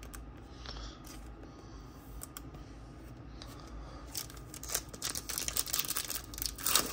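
Trading cards handled quietly with a few faint taps, then from about four seconds in the crinkling and tearing of a foil trading-card pack being opened, growing louder near the end.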